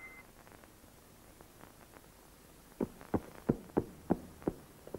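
A quick, even run of short, light knocks, about three a second, starting almost three seconds in after a stretch of near silence: a cartoon sound effect.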